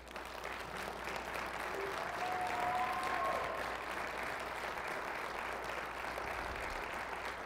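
Audience applause in a large banquet hall, breaking out for an award winner's announcement. It swells over the first few seconds and then keeps up steadily.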